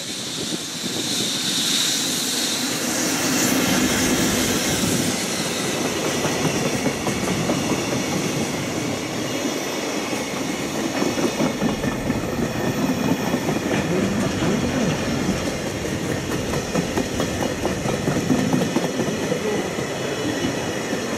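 JR Freight EF65 electric locomotive passing close by at the head of a container freight train, growing louder over the first couple of seconds. A long string of container flat wagons follows, rolling past with a steady clickety-clack of wheels over the rail joints.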